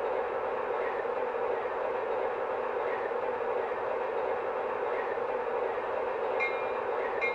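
MTH Alco RS-11 model diesel's Proto-Sound 3 engine sound running steadily from its onboard speaker. Near the end a repeated ringing ding starts, a little more than one a second.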